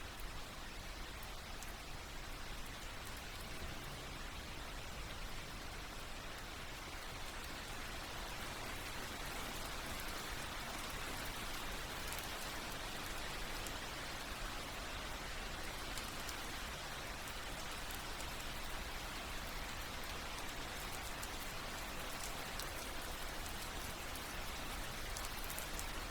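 Steady rain, with drops falling on leaves, tree bark and the forest floor.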